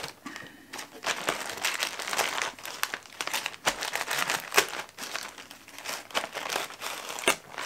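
Plastic mailer bag crinkling and rustling with irregular crackles as it is pressed flat and cut open along its edge.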